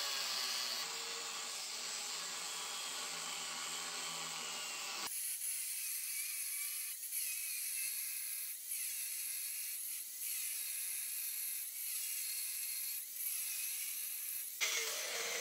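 Angle grinder with a cutoff wheel cutting through a steel canister Damascus billet, running with a steady high whine. About five seconds in the sound changes abruptly, and from then on the whine dips briefly about every second and a half.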